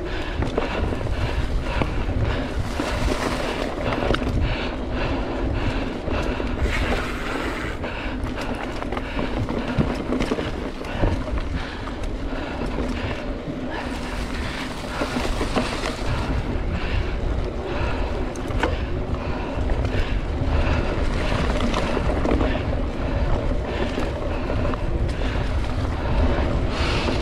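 Wind buffeting the microphone of a mountain bike rider's camera, over the rumble of the tyres on a dirt trail and frequent clicks and rattles from the bike.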